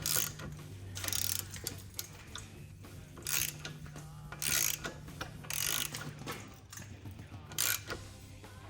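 Socket ratchet clicking through about six short strokes at uneven spacing, turning out a bolt that has been broken loose and is backing out.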